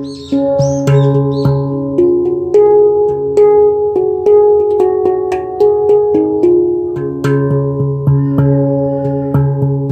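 Handpan played by hand: a flowing melody of struck notes that ring on and overlap, with a low bass note returning again and again beneath them.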